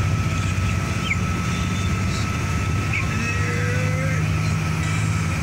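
Steady low engine and road drone heard from inside a moving car, with a faint constant high whine over it.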